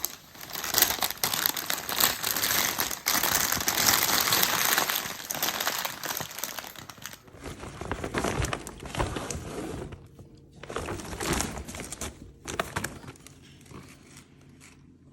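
Plastic packaging being crinkled and torn open, loud and continuous for about the first half, then thinning to scattered crinkles.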